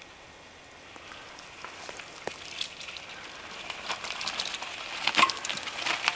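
Mountain bike coming down a dirt trail and passing close by, its tyres crunching and crackling over loose dirt and rocks, growing louder to a peak about five seconds in.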